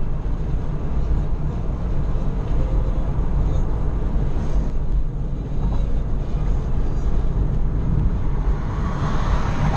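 Steady low rumble of tyre and wind noise inside a car cruising on a motorway. The noise swells a little about nine seconds in.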